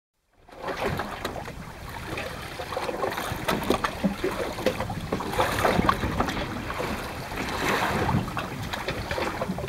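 Wind buffeting the microphone over water lapping against a boat's hull, with scattered short clicks and knocks.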